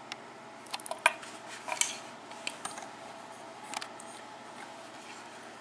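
Scattered light metallic clicks and clinks from a pin-tumbler lock cylinder and metal picking tools being handled, right after the lock has been picked open.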